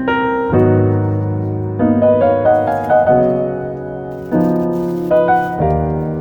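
Background piano music: slow chords struck every second or so and left to ring and fade.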